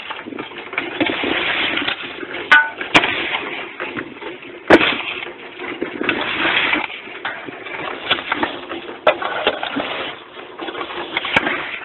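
Metal shovel scraping and pushing gritty concrete mix across the steel mould of a concrete block making machine, a rough, uneven scraping broken by a few sharp knocks.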